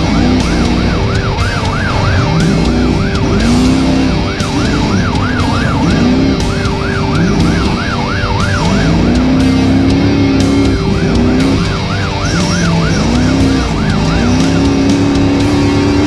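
An Ultra4 race car's onboard yelp siren sounding in quick rising-and-falling sweeps, about three a second, in runs with short breaks, stopping about a second before the end. Under it the race car's engine revs up again and again as it accelerates. The siren warns a slower race vehicle ahead to let the car pass.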